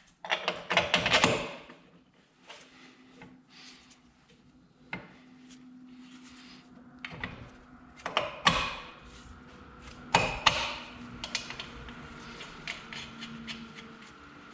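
Scattered metal clanks, knocks and scrapes from a Ford 8.8 rear axle housing and its lower control arm being forced into line and a control arm bolt being worked through, over a faint steady hum. The loudest knocks come about a second in and again around eight and ten seconds in.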